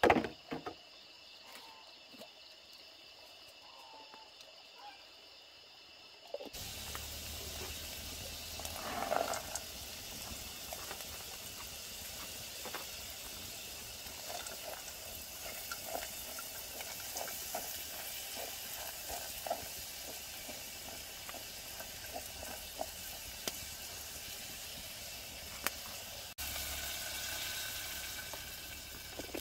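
A sharp knock, then a faint, steady, high insect chorus. After a few seconds the sound changes abruptly to a pot of liquid hissing and bubbling over a wood fire, with many small crackles and pops from the burning wood.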